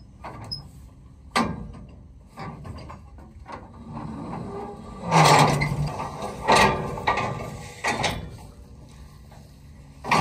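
Metal clicks and clanks from a John Deere combine's folding access ladder being unlatched and swung down, with a sharp click about a second in and the loudest clatter, including a short low creak, about halfway through.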